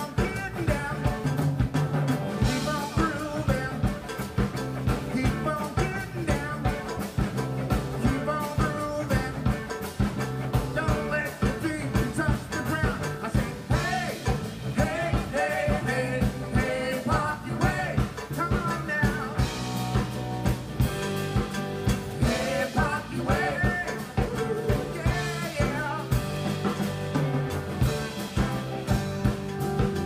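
Live funk band playing with a steady drum-kit beat, bass, guitar, congas and keyboards, with a voice singing the melody over it.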